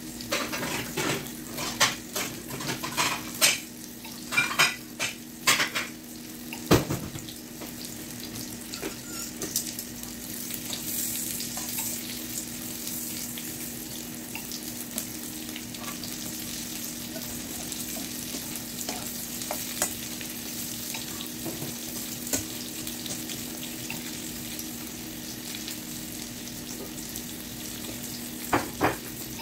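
Egg-battered canned meat loaf slices and bell pepper rings sizzling in oil in a frying pan. A utensil knocks against the pan several times in the first few seconds and again briefly near the end, over a steady low hum.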